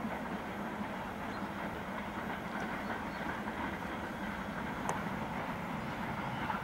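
LNER K4 No. 61994 The Great Marquess, a three-cylinder 2-6-0 steam locomotive, working its train at a distance, heard as a steady rumble of engine and rolling train.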